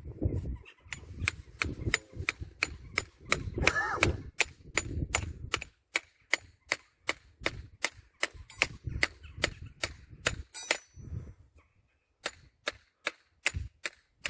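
Farrier's hammer striking horseshoe nails into a horse's hoof: sharp metallic taps, about three a second, with a short pause near the end.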